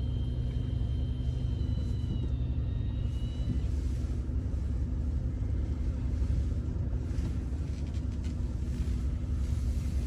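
Car driving along, its engine and tyres making a steady low rumble. A faint thin high tone sounds for the first few seconds, dips slightly and stops about three and a half seconds in.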